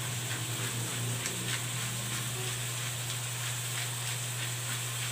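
Pork pieces and onion frying in a pan, a steady sizzle with small crackles scattered through it, over a constant low hum.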